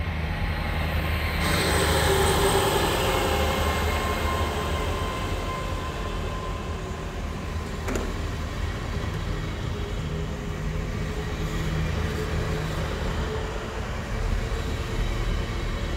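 GWR Class 800 train pulling away at low speed past the listener: a steady rumble of running gear and wheels on rail, louder from about a second and a half in, with a single sharp clunk about halfway through.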